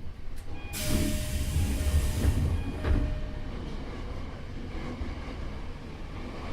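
Sudden hiss of compressed air released on a Tokyo Metro 8000 series train, starting about a second in and fading over about two seconds, with low thuds and a steady tone under it.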